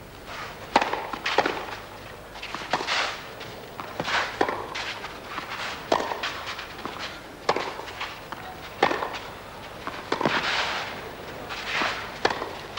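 Tennis ball struck back and forth by rackets in a baseline rally on a clay court, a sharp hit about every second and a half, with players' shoes scuffing and sliding on the clay between shots.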